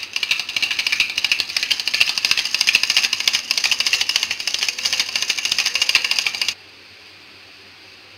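Hand-cranked rotary egg beater whisking a thin batter in a steel bowl: a fast, continuous clicking rattle of the gears and spinning beaters that stops abruptly about six and a half seconds in.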